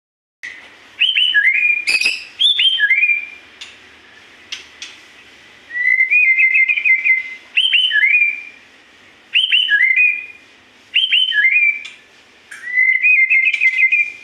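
White-rumped shama (murai batu) singing loudly: repeated phrases of clear, gliding whistled notes, each about a second long with short gaps, some ending in a rapid warbling trill. A sharp click sounds about two seconds in.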